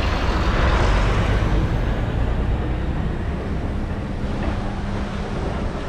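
A road vehicle passing by: a noisy rush with a low rumble that swells about a second in and slowly fades.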